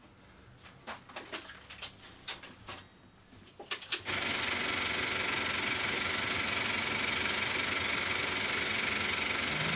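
A few scattered clicks, then about four seconds in a 35 mm film projector starts up and runs with a steady mechanical noise as its film reel turns.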